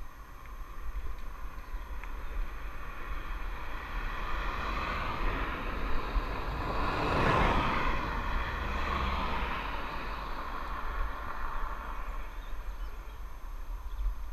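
A car passes the bicycle, its tyre and engine noise rising to a peak about halfway through and then fading as it pulls away. Steady wind rumble on the camera microphone from riding downhill runs underneath.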